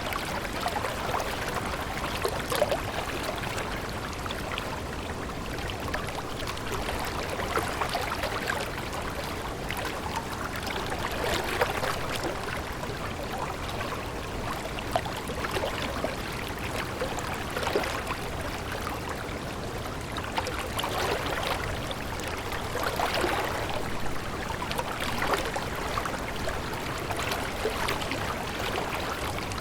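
A stream of water flowing and babbling steadily, with many small irregular gurgles.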